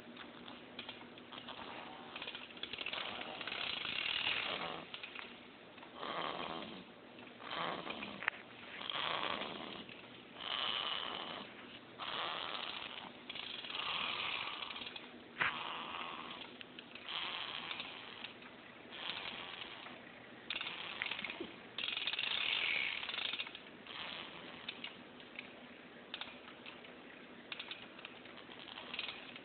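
Snoring: a steady run of noisy breaths, about one every one and a half seconds.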